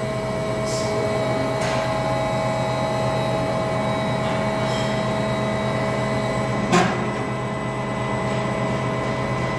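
Tauring Delta 60 CNC angle bending roll running with a steady hum as its rolls curve an aluminium extrusion, with a few light clicks and one sharper knock about two-thirds of the way through.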